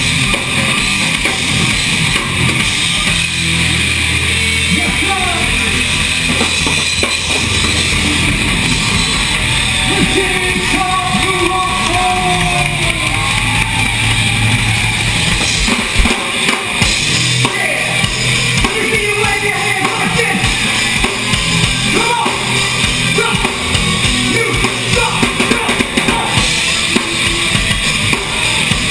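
A rock band playing live at full volume: drum kit with bass drum and cymbals driving the beat, electric guitars, and sustained low bass notes underneath.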